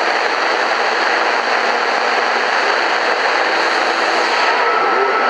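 Shortwave static from an Eton FR250 emergency radio's speaker: a loud, steady hiss with a weak signal buried under it, and a thin steady whistle coming in near the end.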